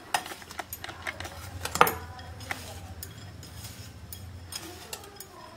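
A spoon stirring a dry mixture of coconut, powdered sugar and crushed nuts in a glass bowl, scraping and clicking against the glass, with one sharper clink a little under two seconds in.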